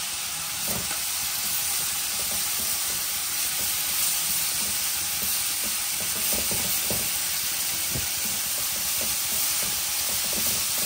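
Cassava leaves stir-frying in plenty of hot oil: a steady sizzle, with a spatula scraping and knocking in the pan now and then.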